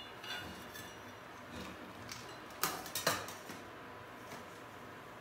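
Metal slotted spoon clinking against a stainless steel pan: two sharp clinks about half a second apart near the middle, with faint background noise around them.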